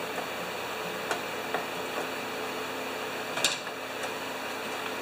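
A hand tool on the small quarter-inch bolts of a snowblower engine's recoil starter housing, giving a few faint clicks and one sharper metallic clink about three and a half seconds in, over a steady background hum.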